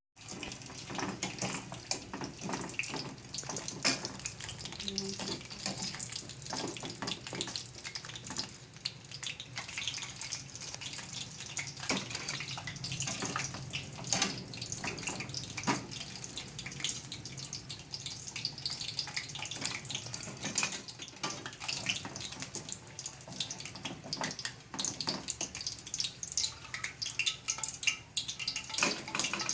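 Sweet potato chunks frying in hot oil with sugar for kamote cue, sizzling steadily with many small crackles and pops as the sugar caramelizes.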